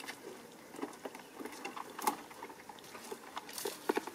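Footsteps on a wooden boat and the grassy bank: irregular light clicks and rustles, with a few sharper ones about halfway and near the end.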